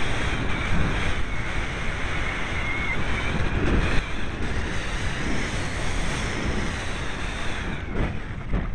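Wind buffeting the microphone of a camera mounted on a low-flying aircraft: a steady gusting roar with a faint, wavering whine underneath.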